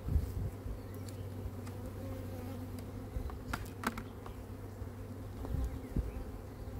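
Honeybee colony buzzing steadily over an open hive during a frame inspection, with a few light clicks and knocks from the wooden frames being handled.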